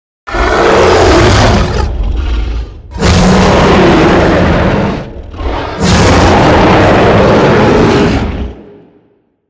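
Dinosaur roar sound effect: three loud, rough roars of two to three seconds each, the last one fading out.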